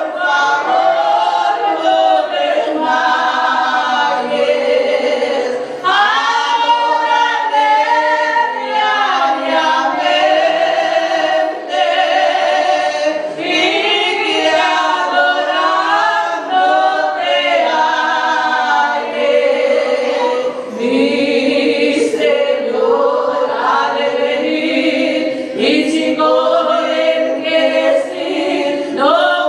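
Two women singing a hymn together into microphones, unaccompanied, their voices continuous with only brief breaths between phrases.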